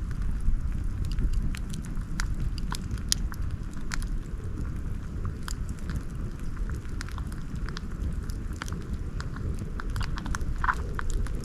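Wood campfire crackling, with irregular sharp pops and snaps over a steady low rumble. A brief whistle-like sound comes near the end.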